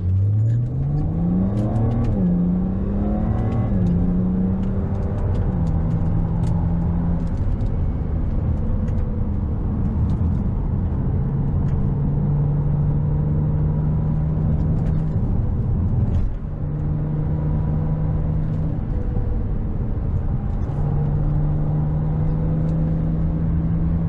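BMW Z4 35i's N54 twin-turbo straight-six heard from inside the cabin on the road. The engine note climbs twice in the first few seconds, dropping back at each upshift, then settles into a steady cruise. It runs smoothly now that its Vanos actuators have been cleaned.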